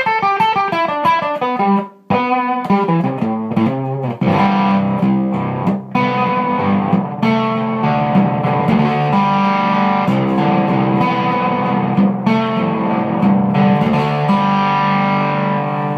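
Electric guitar on its bridge pickup played through a Ghost Effects Mark 1 Tone Bender fuzz pedal with the drive at about 2 o'clock. A quick run of single notes breaks off briefly about two seconds in, then gives way to fuzzy riffing with held chords.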